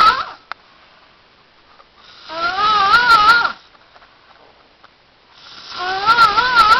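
Snoring, with a wavering pitched, whistle-like tone on each breath. The tail of one snore ends at the very start, then two full snores follow about three seconds apart, with quiet breathing between.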